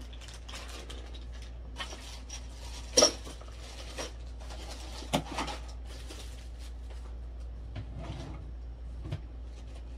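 Plastic bags rustling and being rummaged through as empty plastic squeeze tubes are pulled out, with a sharp clack about three seconds in and another just after five seconds, over a low steady hum.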